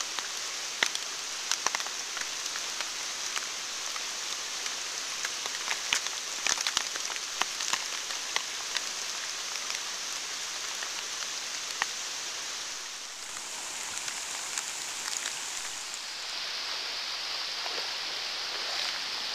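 Steady rain falling on flooded woods, with frequent sharp taps of raindrops striking the plastic bag wrapped around the camera.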